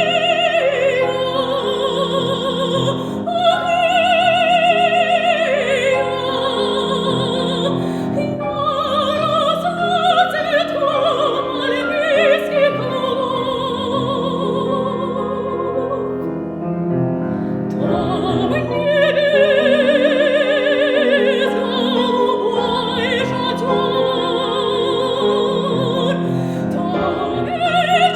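Soprano singing an operetta aria in full operatic voice with wide vibrato, accompanied by grand piano.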